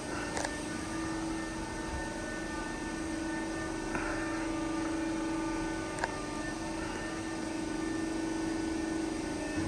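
Steady electric machine hum with a few sharp clicks, about six seconds in the loudest, and a brief hiss about four seconds in.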